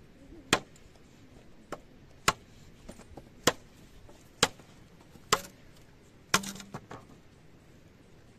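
Machete chopping into a green bamboo pole, cutting off a section of tube. The sharp strikes come roughly once a second, with a quick pair near the end.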